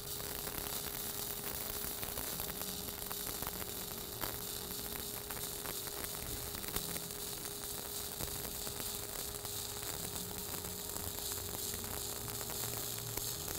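Stick-welding arc from a 3/32-inch 7018 electrode at about 90 amps burning steadily on a root pass, an even crackling hiss with faint scattered pops. A steady hum runs underneath.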